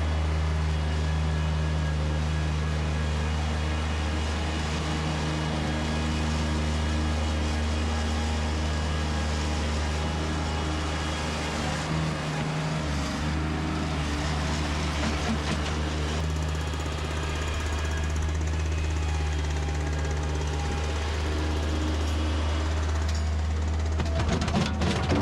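Engine of heavy construction equipment running steadily with a low, even drone and some mechanical rattle.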